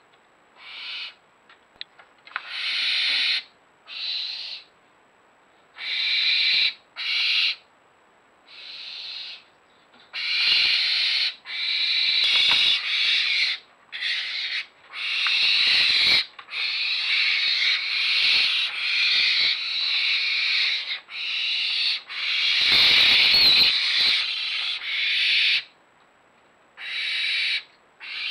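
Barn owls hissing in harsh rasping bursts of half a second to a second and a half, sparse at first and then nearly continuous in the middle as several birds call over one another: the snoring food-begging hiss of young barn owls. A few low thumps of movement sound among the calls.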